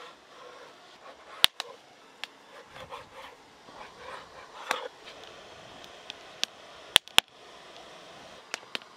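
Plastic knife cutting the edges off a slab of dough on a wooden board: faint scraping and rubbing with scattered sharp taps, the loudest two close together about seven seconds in.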